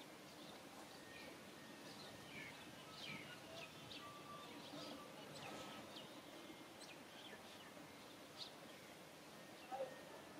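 Faint small-bird chirps, many short high calls scattered through quiet outdoor ambience, with one brief louder sound near the end.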